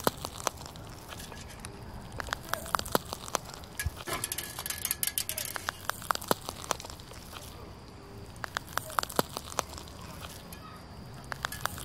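Toy slime being squeezed and stretched by hand, making irregular small pops and clicks.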